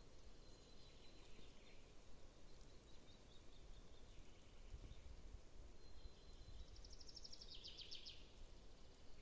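Quiet outdoor ambience with faint distant songbirds: thin high whistled notes, then a fast trill of rapid high notes for about a second near the end.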